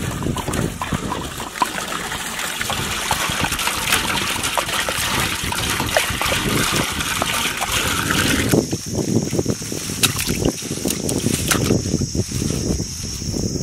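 Water pouring from a large plastic water jug into a big metal cooking pot, trickling and splashing into the water already in it. About eight seconds in the pouring stops and a steady high insect buzz takes over, with scattered clicks and crackles below it.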